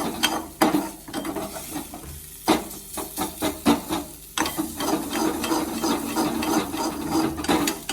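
Grated ginger sizzling in ghee in a kadhai while a spatula stirs it, scraping and knocking against the pan in irregular clicks. The ginger is being roasted on low heat as its moisture cooks off.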